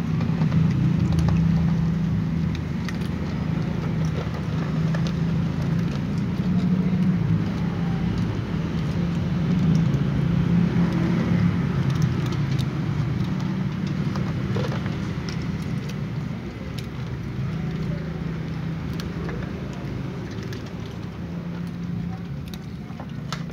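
A steady low rumble, like an engine or traffic, with scattered small clicks of cats crunching dry kibble close by.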